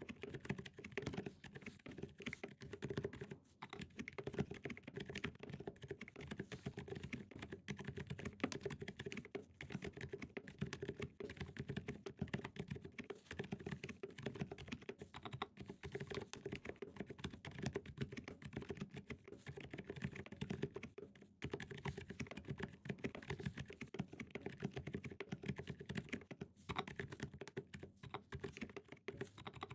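Fast, continuous typing on a custom KBD67 Lite mechanical keyboard fitted with lubed and filmed Zealpc Zilent v2 silent tactile switches and SP SA keycaps: a dense stream of soft, low-pitched key presses, broken by brief pauses a few times.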